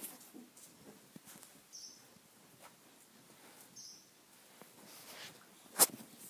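Parson Russell Terrier puppies playing: faint scuffling and light clicks, with two short, high squeaks about two seconds apart. Near the end comes one sharp knock, the loudest sound.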